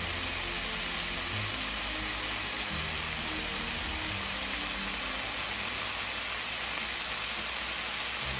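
Beef steak frying in an oiled nonstick pan, a steady sizzle.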